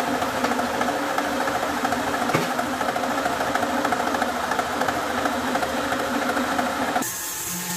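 Wood lathe running steadily with a rough, vibrating hum as the painted wooden workpiece spins. About seven seconds in, the sound switches abruptly to a different, quieter steady hum.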